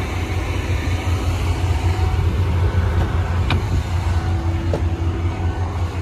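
Steady low vehicle rumble, with a single sharp click about three and a half seconds in as a BMW SUV's door is unlatched and opened.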